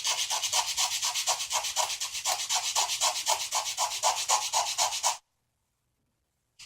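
Hand sanding of a small wooden model-ship deck plank: quick, even back-and-forth strokes, about four a second, that stop about five seconds in. A faint click near the end.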